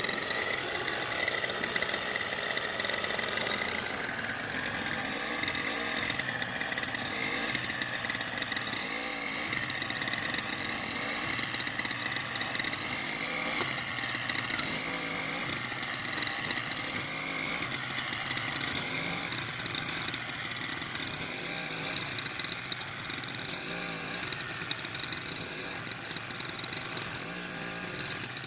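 A small engine running steadily, its pitch wavering slightly up and down.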